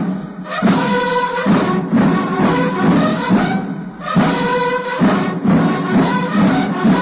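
Brass band with drums playing Mexican patriotic music, held brass notes in phrases with short breaks between them.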